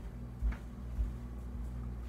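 Ceiling fan motor humming steadily, with two dull knocks about half a second and a second in.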